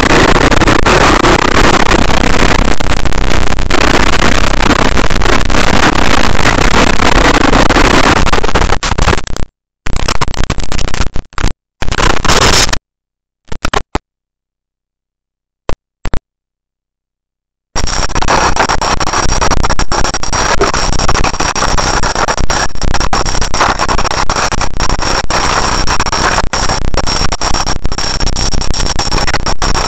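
KTM dirt bike engine running, heard as loud, heavily clipped noise on a rider-mounted camera's microphone. About a third of the way in the sound breaks into short bursts and then cuts out completely for several seconds. It comes back just past halfway as the same distorted engine noise, now with a steady high whine over it.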